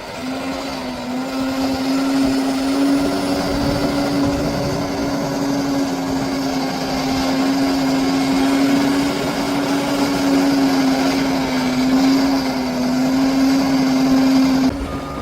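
Bulldozer's diesel engine running hard under load, a steady whine over a rough, clattering rumble. The sound drops suddenly near the end.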